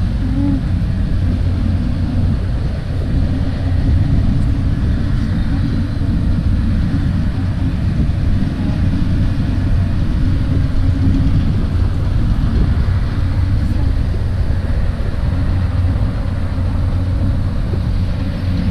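Wind buffeting the camera's microphone: a loud, continuous low rumble that swells and dips.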